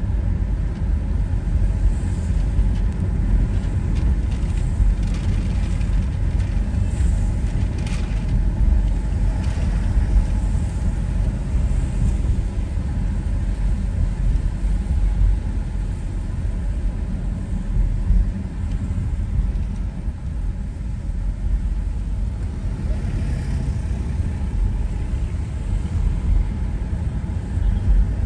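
Car driving on a wet road: a steady low rumble of engine and road noise, with faint tyre hiss on the wet asphalt.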